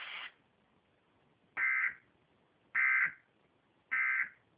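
Three short bursts of Emergency Alert System end-of-message data tones (SAME digital code), each about a third of a second long and a little over a second apart. They are the signal that the weather warning message has ended.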